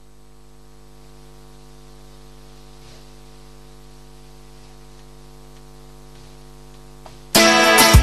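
A low, steady electrical mains hum with its overtones, then about seven seconds in a band with electric guitars starts playing loudly.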